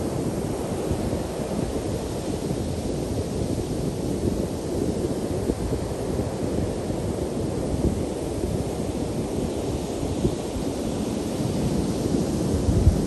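Ocean surf breaking and washing up the beach in a steady, continuous rumble, with wind buffeting the microphone.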